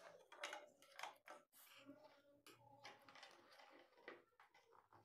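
Faint small clicks and scrapes of metal parts as the glass tube of a mercury sphygmomanometer is seated at its base and its screw is tightened with a screwdriver.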